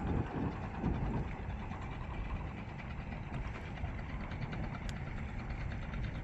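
A steady low engine rumble, with a few louder low swells in the first second.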